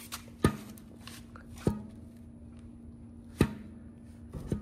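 Crankshaft of a 5.3 LS V8 knocking fore and aft as its harmonic balancer is pushed and pulled by hand: four sharp clunks, a second or more apart, over a faint steady hum. The clunks come from excessive crankshaft end play, about 3/16 inch, and the thrust bearing is probably worn.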